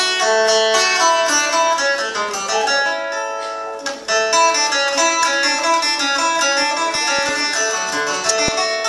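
A small acoustic plucked-string instrument picking a quick, busy melodic introduction, with a short break about four seconds in.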